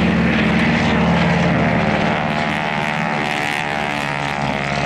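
Radial piston engine and propeller of a Grumman Ag-Cat biplane running steadily as it flies past, its pitch shifting a little as the plane passes.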